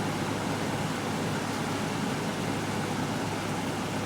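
Cockpit noise of a Cessna 172F in flight: its Continental O-300 six-cylinder engine running steadily at reduced power under a steady hiss of airflow, as the airplane is slowed to enter a power-on stall.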